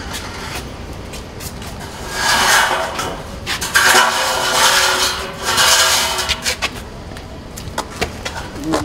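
Workers handling materials in a workshop: several long scraping, rubbing sounds in the middle, with scattered knocks and clicks of wood and tools.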